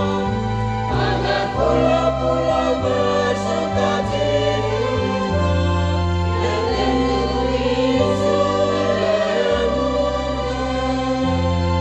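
Church choir of women's and men's voices singing a hymn in parts, with steady low notes underneath that change every second or two.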